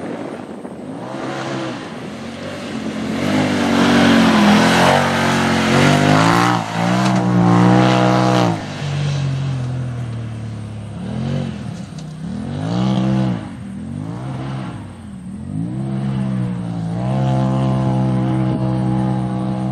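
Polaris side-by-side UTV engine revving hard over and over, its pitch climbing and falling with each throttle burst. It is loudest in the first half, then swells in several shorter revs, and holds a steadier high rev near the end.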